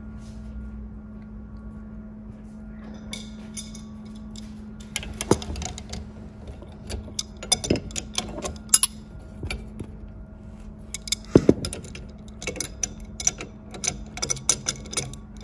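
Adjustable spanner tightening a brass nut on a bent threaded steel bar at a galvanised pipe tee: irregular metal clicks and clinks as the spanner is set on, turned and repositioned, starting a few seconds in. A steady low hum runs underneath.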